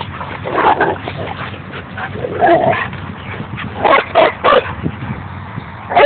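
Dog barking in short bursts during play: a couple of single barks, then three quick barks about four seconds in, and another near the end.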